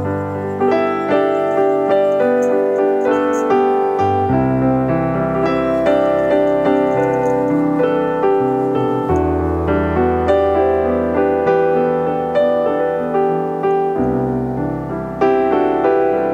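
Background piano music: a steady run of notes over a bass note that changes every few seconds.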